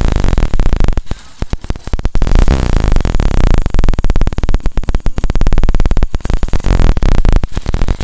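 Hero Passion Pro motorcycle's single-cylinder four-stroke engine running close up as a rapid, even stream of firing pulses, dipping briefly about a second in. It runs without the timing-chain rattle, which was cured by fitting a new bolt.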